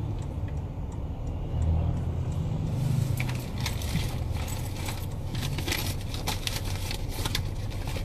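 Steady low hum of a car cabin, with short clicks and rustles from about three seconds in as someone rummages for a mobile phone.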